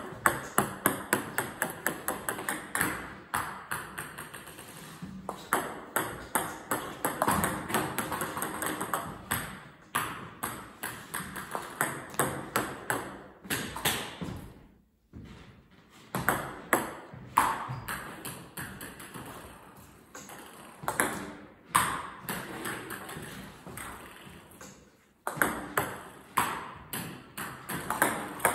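Table tennis balls clicking off the racket and bouncing on the table during serve practice: runs of quick sharp ticks, many speeding up as a ball bounces to rest, repeated with short pauses between serves.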